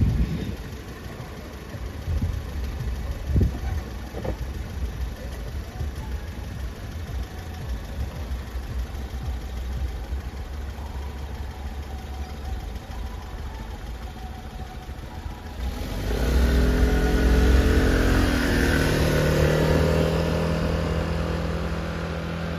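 The last rumble of a passing train dies away in the first second. About sixteen seconds in, engines start up loud as road traffic crosses the tracks, with a motor scooter among the vehicles, their pitch rising and falling as they pull away.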